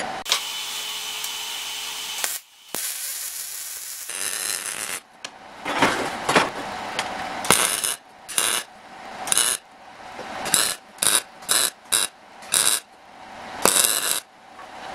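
MIG welder laying a series of short tack welds on steel: about a dozen brief crackling bursts, each under a second, with pauses between, in the second half. The first few seconds hold steadier noise.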